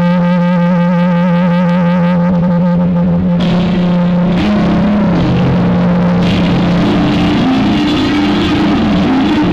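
Live rock band with electric guitar lead: one long sustained note with vibrato, then about three seconds in the full band comes in under a moving guitar line. Heard through a faulty camera microphone that spoils the sound.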